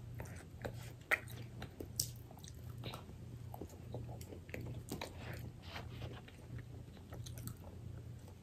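Eating sounds of Popeyes fried chicken and biscuits: biting and chewing, with irregular small crackles and clicks as the crispy chicken is pulled apart by hand and eaten. A faint low hum lies underneath.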